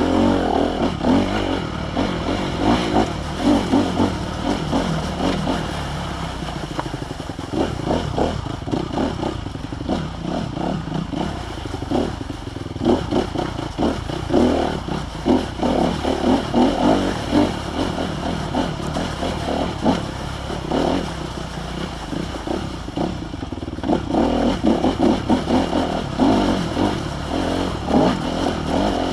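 Honda CRF250R's single-cylinder four-stroke engine revving up and down in quick repeated bursts as the bike is ridden over a rough, rocky trail, with clattering knocks from the bike hitting stones and ruts.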